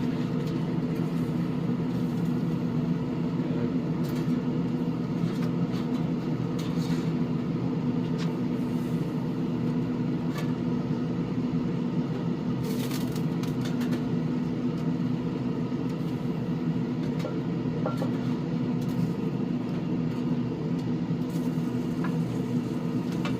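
Steady mechanical hum with a low drone: a pellet smoker's combustion fan still running in its shutdown cycle after the grill has been switched off. A few light clicks and rustles now and then.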